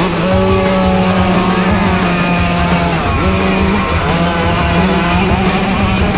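Puch Maxi mopeds' two-stroke engines running hard at high revs, the pitch stepping and rising and falling with the throttle.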